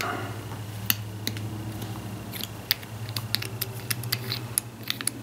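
Irregular light clicks and taps of small parts of a tractor fuel shut-off valve being handled and fitted together by hand, over a steady low hum.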